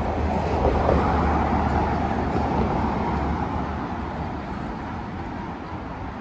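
A car passing close by on a city street, its engine and tyre noise loudest about a second in and then fading as it moves away.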